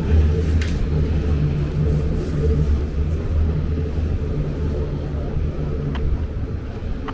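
Low rumble of a motor vehicle, with a steady engine hum, slowly fading as it moves away.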